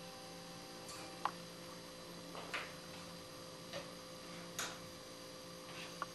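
Small glass bottles being handled and set down on a table: about five light clicks and clinks at irregular intervals, over a steady electrical hum.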